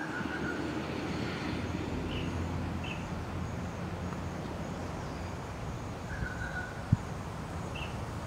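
Outdoor mudflat ambience: a steady low rumble with a few faint, short bird chirps and a single sharp click about seven seconds in.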